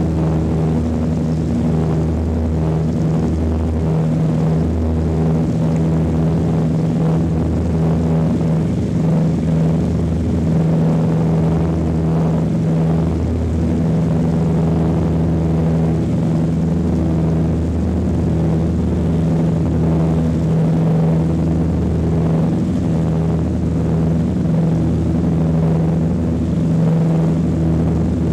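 The four Wright R-3350 turbo-compound radial engines of a Douglas DC-7B run at takeoff power, heard from inside the cabin. It is a steady, loud propeller drone with a slow pulsing beat between the engines.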